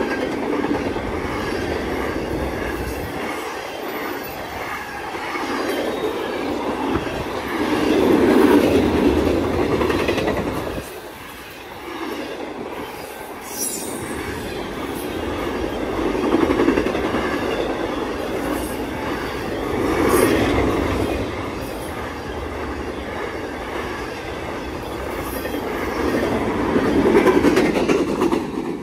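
BNSF double-stack intermodal train's well cars rolling past at speed: a steady rumble and clatter of steel wheels on rail that swells and fades every few seconds as sets of wheels go by.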